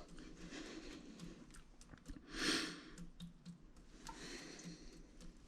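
Faint clicks of small valve parts being handled during reassembly, with a short noisy rush about two and a half seconds in.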